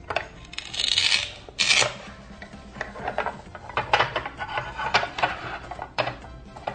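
Toy food held together with Velcro being pulled apart with a plastic toy knife: two short rasping Velcro rips about one and two seconds in, then light plastic clicks and knocks on the toy cutting board.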